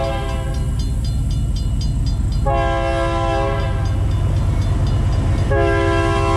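An approaching diesel locomotive's air horn sounds the grade-crossing signal over a low engine rumble: a long blast ends just after the start, a short blast comes about two and a half seconds in, and the final long blast begins near the end. Between the blasts, the crossing's two first-generation Safetran mechanical bells ring rapidly, about five strokes a second.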